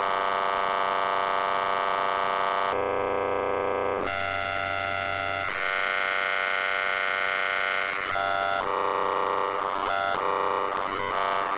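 Glitchy output of the Beatchop slicer in Reason: a loop cut into very short slices and retriggered by a step sequencer, heard as a steady pitched drone. The drone jumps to a new tone every second or two as the mod wheel sweeps the slice start and length, and changes faster near the end.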